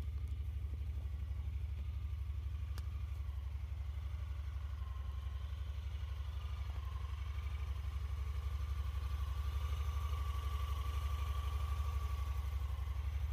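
Honda Pioneer 1000-5 side-by-side's 999 cc parallel-twin engine idling steadily, not revved. The idle grows slightly louder in the second half.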